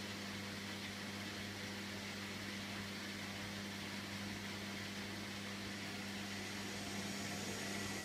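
Hotpoint front-loading washing machine running mid-cycle: a steady motor hum over a hiss of tumbling water and laundry, with the hum cutting off at the end.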